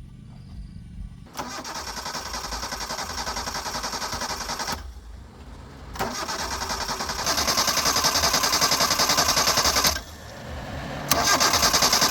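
A long-idle car's engine being cranked by its starter motor in three attempts, about three, four and two seconds long, each stopping abruptly with short pauses between, without the engine settling into a run.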